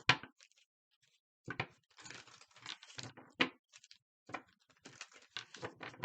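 A deck of reading cards being shuffled and handled: a sharp snap at the start, then irregular rustling and light taps.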